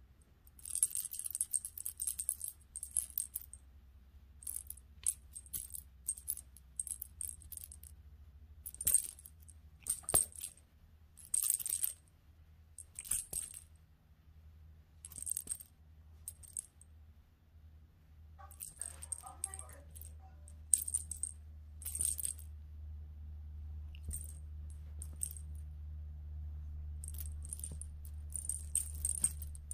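Small bell in a cat toy jingling in short, irregular bursts as a cat bats and wrestles the toy. A steady low hum runs underneath.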